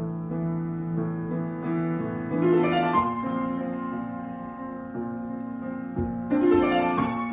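Solo piano improvisation: slow held chords, broken twice by a quick rising run of notes, about two seconds in and again near the end.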